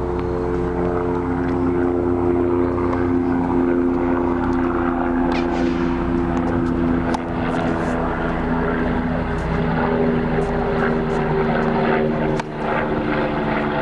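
Propeller airplane droning steadily, its engine and propeller giving several held tones over a low rumble.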